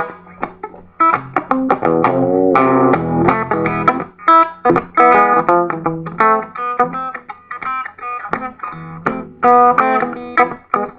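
Electric guitar played solo in a swinging boogie style: quick, rhythmic chord stabs and short runs, with brief breaks about a second in and just before the end.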